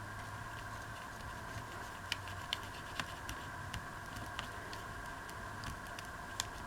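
Light scattered taps and clicks of paper and a glue bottle being handled while gluing, starting about two seconds in, over a steady faint electrical hum.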